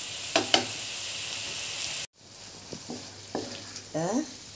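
A stir-fry of shelled clams and tofu sizzling in a nonstick pan while a spatula stirs it, with two sharp spatula knocks against the pan about half a second in. The sound cuts off abruptly about two seconds in, then comes back as quieter stirring with a few light taps.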